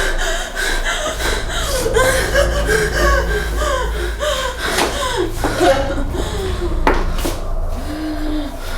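Wordless human voice sounds, gasps and chuckles, in quick gliding bursts over a low steady hum, with a sharp click about seven seconds in.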